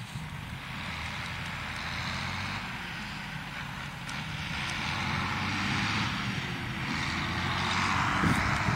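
Tractor engine running steadily under a hiss, growing gradually louder.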